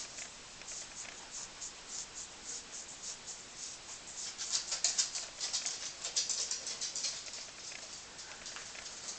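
Cloth rubbing Brasso polish over the brass body of an Optimus No 415 blow torch: quick, irregular swishing strokes, busiest and loudest about halfway through.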